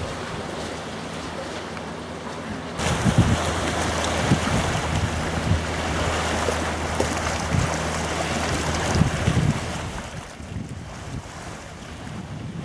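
Wind gusting against the microphone, over small waves washing onto a pebble lakeshore. The wind comes in suddenly about three seconds in, with low buffeting thumps, and eases near the end.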